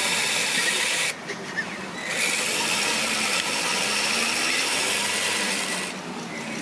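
Eight-wheeled RC trial truck's electric motor and gearbox whining under load as it crawls up a steep slope. The drive stops about a second in, starts again a second later, and stops shortly before the end.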